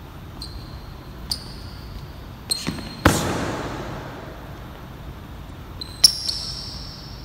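Boxing gloves landing punches in sparring: several sharp slaps and thuds, the loudest about three seconds in and another about six seconds in, each echoing through the large gym. A few short high squeaks from sneakers on the court floor come with the exchanges.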